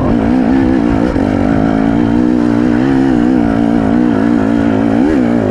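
KTM enduro motorcycle engine pulling up a steep, dry trail in second gear at low, even throttle, its pitch wavering slightly as the rider feeds the throttle. The revs rise briefly about five seconds in. Second gear and smooth, constant throttle are chosen for traction on dry ground without wheelspin.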